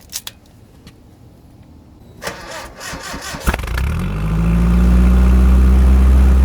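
Truck engine cranked by its starter for about a second, catching about 3.5 s in, then running loud and steady at idle through a straight-piped exhaust.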